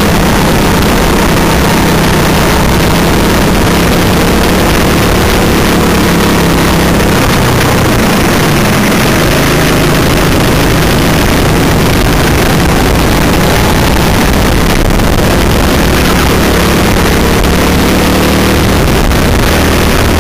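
Go-kart engine running hard under racing load, loud and continuous, its revs rising and falling gently as the kart goes through corners, with a dense rush of noise over it.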